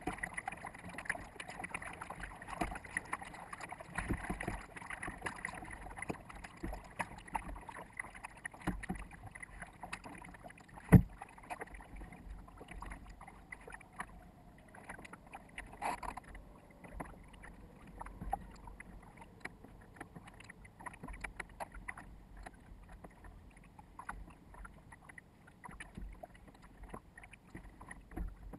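Water slapping and sloshing against a small sailboat's hull, with wind on the microphone, sped up to four times normal speed so that it chatters with quick little clicks. One sharp knock stands out about eleven seconds in.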